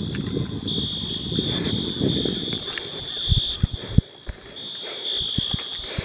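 Distant Wheelock fire alarm horns sounding the evacuation signal of a fire drill: a high, steady tone that grows louder and softer in stretches. Wind rumbles on the microphone for the first half, and a few handling knocks come near the end.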